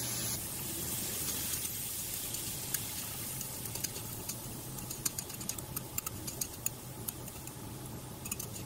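Bacon, onion and broccoli sizzling in a stainless steel frying pan while being stir-fried with chopsticks. A steady frying hiss runs throughout, with many light clicks from about two seconds in as the food is stirred.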